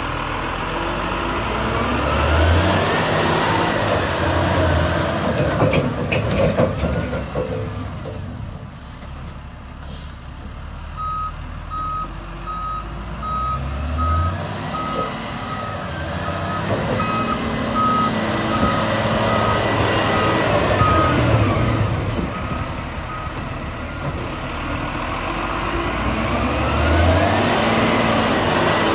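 Volvo A30E articulated dump truck's diesel engine running under load as the truck drives, its pitch rising and falling repeatedly as it accelerates and shifts. Through the middle stretch the truck's reversing alarm beeps steadily for about twelve seconds.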